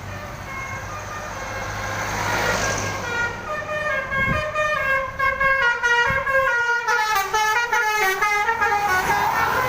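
Indonesian bus's telolet multi-tone musical horn playing a quick tune of stepped notes over the running engine. It grows louder as the bus approaches and sinks in pitch near the end as it passes.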